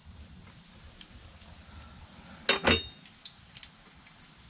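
Metal clinks of exhaust header hardware being handled and fitted by hand at the engine's header flange: two sharp clinks about two and a half seconds in, then a few lighter ticks and a brief high ping.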